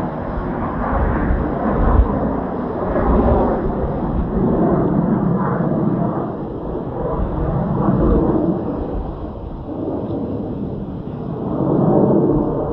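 Strong, gusty wind buffeting the microphone: a low rumbling roar with irregular thumps that swells and fades several times.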